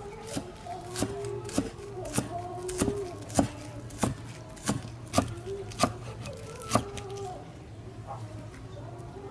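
Cleaver chopping spring onions on a round wooden chopping board: about eleven steady chops, a little under two a second, that stop about seven seconds in.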